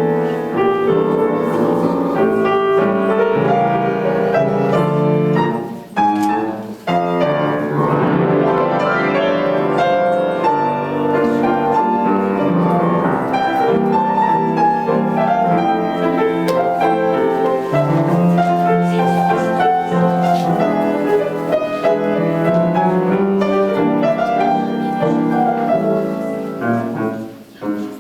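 Piano playing a classical-style piece, with a short break about six seconds in and the music fading briefly near the end.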